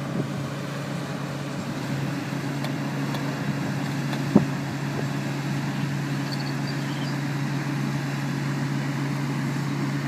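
Heavy crane's engine running steadily under load while it lifts and drags a sailboat, with one sharp knock about four seconds in.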